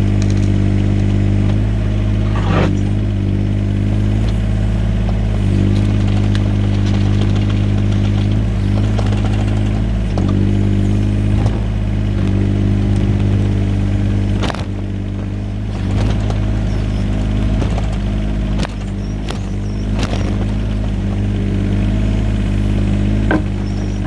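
Yanmar VIO17 mini excavator's three-cylinder diesel engine running steadily under work, with occasional sharp clanks and knocks from the machine at work.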